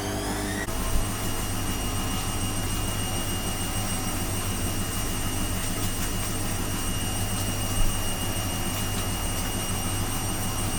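Steady hum of a running electric motor, with steady high whining tones and a couple of short knocks.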